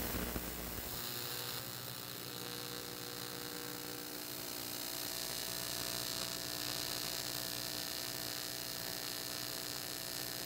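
AC TIG welding arc on aluminum plate, buzzing steadily with a hiss, run with the heat set too high so the puddle burns into the base metal.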